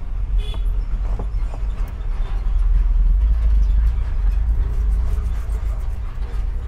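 A vehicle engine running with a steady low rumble, with a few faint clicks and rustles on top.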